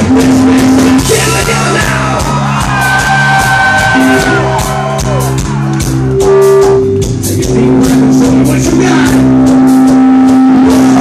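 Live rock band playing loud through a club sound system: electric guitars and bass holding sustained notes over a steady drum beat.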